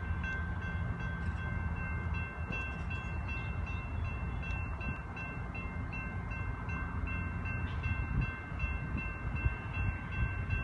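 Railroad grade-crossing bell ringing steadily at a level crossing as the gates rise, the sign that the train has cleared the crossing, over the low rumble of a freight train.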